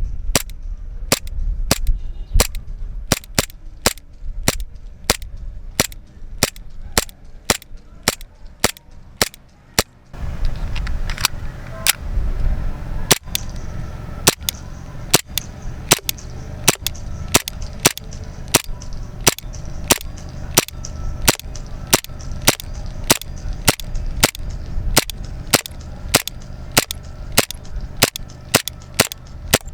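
WF M92 Beretta blowback airsoft pistol firing semi-automatic shots in a long, steady string of sharp cracks, about two a second, with a short break about ten seconds in.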